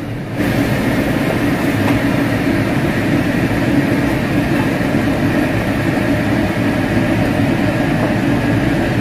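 Steady, loud whirring of a kitchen range-hood extractor fan running over the stove. It comes in suddenly just under half a second in.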